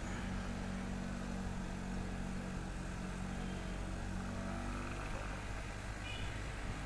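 Benelli motorcycle engine running at a steady low cruise, its pitch nearly constant, under a wide hiss of wind and road noise. A brief faint high chirp comes about six seconds in.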